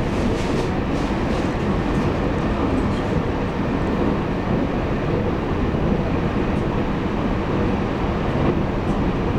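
Running noise of a Taiwan Railways EMU800 electric multiple unit heard inside the passenger car at speed: a steady rumble of wheels on rail, with a few faint clicks in the first second or two.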